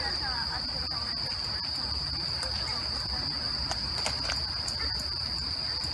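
Crickets or similar night insects calling in a steady, unbroken high-pitched trill, over a low background rumble.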